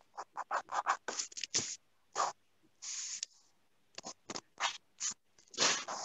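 Pencil or pen drawing on paper: a run of short scratchy strokes with a few longer ones, cut to silence between strokes as if by a video call's noise gate.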